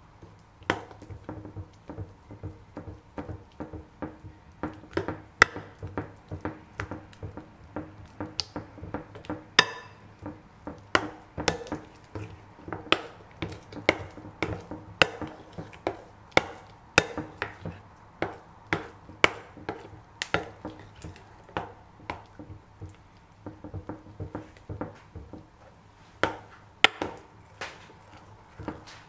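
Metal utensil stirring thick batter in a glass mixing bowl, clinking against the glass in irregular sharp knocks about one to two a second.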